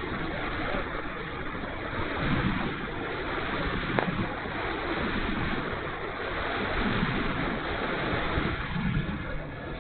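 Steady wind rushing over the microphone of a camera on the wing of an RC glider in flight, with no clear motor tone. A single brief click about four seconds in.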